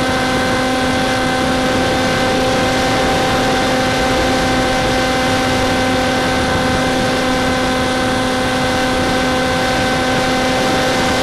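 Electric motor and propeller of an Easy Star model plane running at a steady speed in flight, heard from on board: a steady hum with several pitched overtones over a loud, even rush of wind on the microphone.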